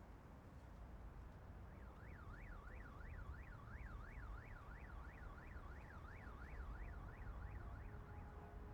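Faint emergency-vehicle siren in fast yelp mode, its pitch sweeping up and down a little over twice a second, starting about two seconds in and dying away near the end, over a steady low city rumble.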